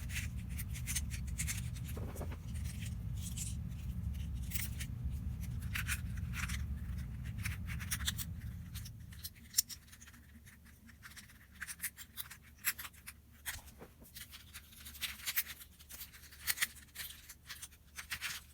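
Plastic twisty puzzle being turned by hand: a run of quick, uneven clicks and clacks as its layers are twisted. A low rumble sounds under the clicks and stops about halfway.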